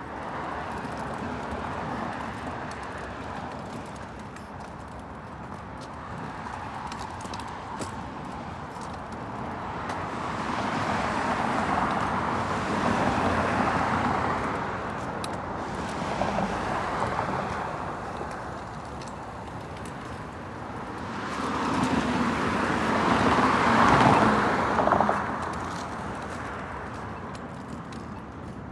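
Road traffic passing by: two vehicles swell up and fade away in turn, the second one louder.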